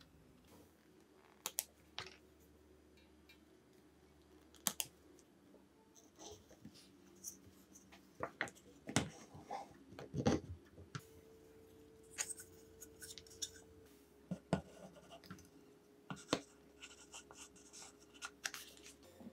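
Hands handling 3D-printed plastic saw parts: scattered clicks, taps and scrapes as wires are threaded and the plastic handle is fitted onto the housing. The loudest knocks come about nine and ten seconds in.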